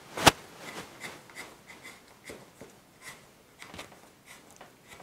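Electrical cord being pulled through a hole in a plastic lamp base by hand: a sharp click about a quarter second in, then a run of short rubbing and scraping sounds as the cord slides through.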